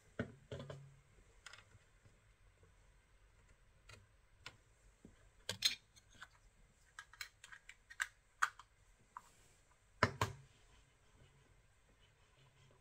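Laptop keyboard keys clicking in scattered, irregular taps with pauses between them, two of them louder clacks, one a little before halfway and one about three-quarters through.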